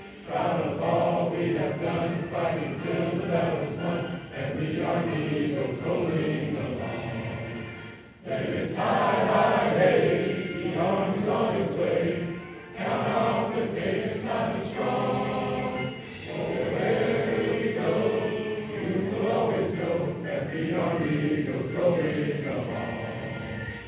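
Music with a choir singing, sustained and loud, with two brief dips in the middle.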